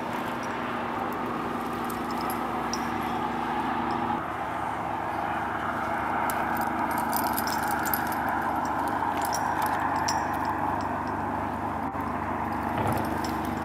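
Motorcycle traffic on a highway: steady engine noise whose pitch shifts about four seconds in and again near the end. Light metallic clinking of climbing gear on a harness is scattered through it.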